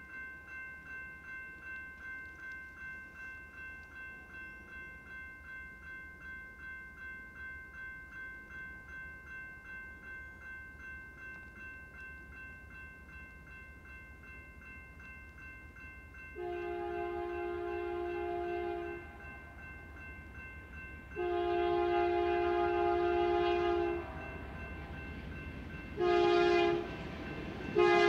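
A grade-crossing bell rings steadily at about two strokes a second. Over it a BNSF freight locomotive's air horn sounds the grade-crossing signal: a long blast, a second long blast, a short blast, and the final long blast beginning just at the end. The train's low rumble grows as it approaches.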